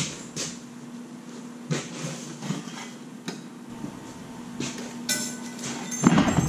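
Thin plasma-cut sheet-metal pieces being handled and set down, giving light irregular clinks and knocks, with a louder metallic clatter about six seconds in.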